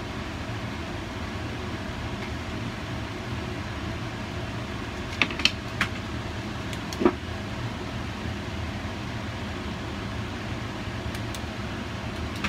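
A steady mechanical hum, with a few short sharp clicks about five to seven seconds in.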